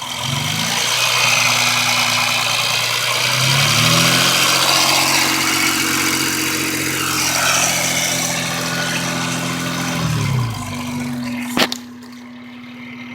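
2001 Honda Accord's 3.0-litre V6 revved up from idle in two steps, held at raised revs for several seconds, then let fall back to idle. Under it runs the ticking the owner is chasing, which he thinks may mean the valves need adjusting. A single sharp click comes shortly after the engine settles.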